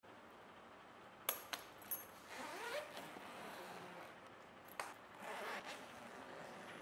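Suitcase zipper: a few sharp clicks of the metal zipper pulls, then a short zip, and after another click a second short zip about three seconds after the first.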